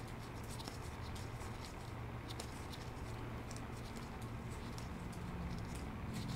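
Baseball trading cards being flipped through in gloved hands: faint, quick, irregular ticks and rustles of card stock over a low steady hum.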